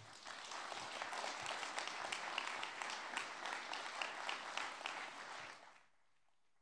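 Audience applauding, a dense patter of many hands clapping that dies away about a second before the end.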